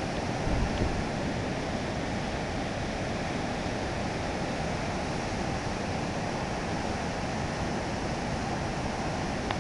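Steady roar of falling water from a large waterfall, with a brief low buffet of wind on the microphone about half a second in.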